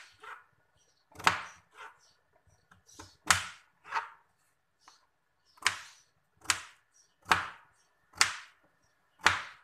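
Kitchen knife cutting a potato on a plastic cutting board, slice by slice: separate sharp knocks of the blade hitting the board, roughly one a second, a little quicker and more even in the second half.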